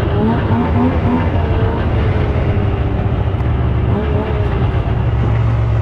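A 2000 Yamaha SXR 700 snowmobile's three-cylinder two-stroke engine running steadily.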